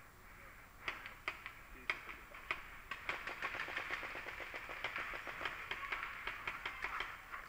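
Paintball markers firing: a few single shots about a second apart, then a rapid string of shots, several a second, from about three seconds in.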